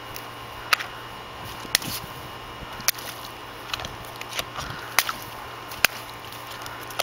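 Water balloons bursting one after another as a dog bites into them: five sharp pops spread over several seconds.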